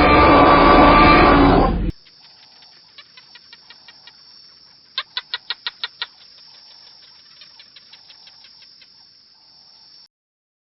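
A loud, harsh animal call that cuts off about two seconds in, followed by a bird's rapid chirps in short runs, the loudest a run of about seven some five seconds in.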